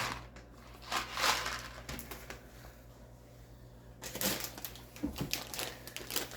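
Grocery packages being handled: a few short knocks and rustles, then plastic packaging crinkling from about four seconds in.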